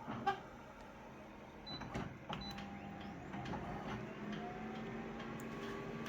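Photocopier starting a copy: a few sharp clicks, then its scanning motor runs with a steady hum and a faint rising whine.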